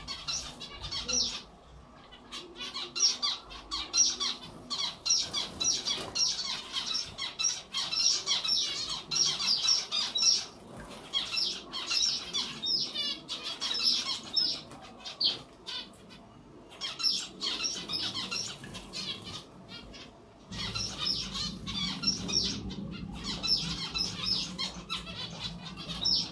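Zebra finches bathing in a water bowl: repeated quick splashing and wing-fluttering in the water, with frequent short, high chirping calls from the birds.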